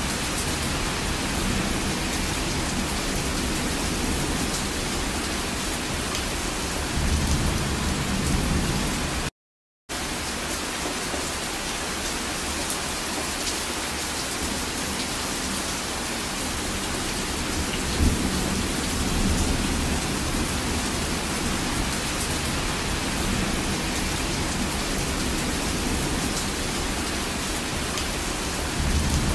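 Heavy rain falling steadily, a dense even hiss, with low rumbles of thunder swelling about seven seconds in, again around eighteen seconds, and near the end. The sound cuts out for about half a second around nine seconds in.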